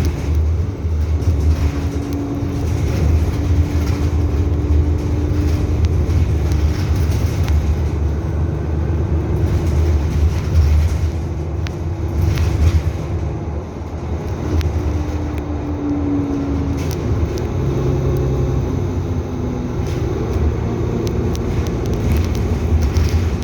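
Nova Bus LFS city bus running with a steady low engine drone. A humming whine comes in twice, early on for a few seconds and again about two-thirds of the way through.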